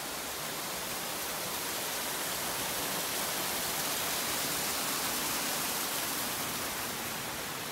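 Steady rushing of a mountain stream cascading through a gorge: an even hiss of water spread across low and high pitches, swelling a little toward the middle.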